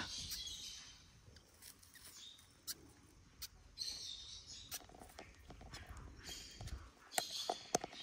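Faint crackles and clicks of eggshell being picked away by fingers from a newly hatched myna chick, with a few faint, brief bird chirps.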